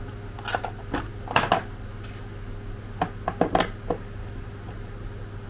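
Irregular clicks and taps of a small screwdriver working at the plastic case of an Xtar X4 battery charger during disassembly. They come in two clusters, the loudest about a second and a half in and another run three to four seconds in.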